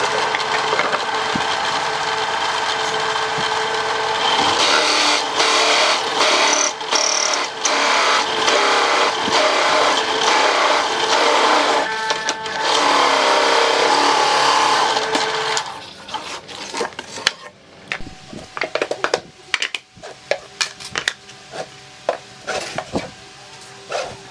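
Drill press running an adjustable circle cutter through a wooden board: a steady motor sound with the cutter grinding in the wood. About fifteen seconds in the cutting stops, and a series of irregular sharp knocks and taps follows.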